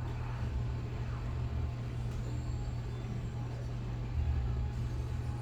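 Steady low rumble of water heating in a kettle for tea, not yet at the boil.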